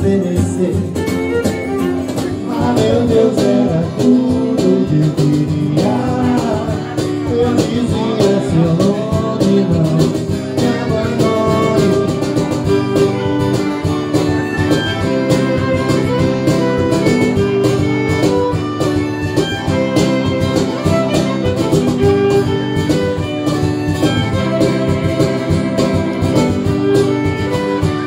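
Live acoustic trio playing an instrumental passage: violin playing sustained, sliding lines over strummed acoustic guitar, with cajon.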